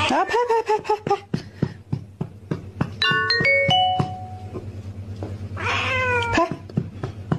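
Two drawn-out cat meows, each falling in pitch, one at the start and one about six seconds in, with a short descending chime between them. Background music with a steady ticking beat plays throughout.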